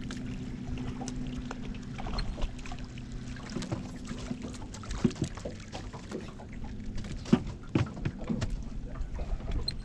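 A boat motor hums steadily and stops about halfway through. Scattered knocks and clicks follow, the loudest about three-quarters of the way in.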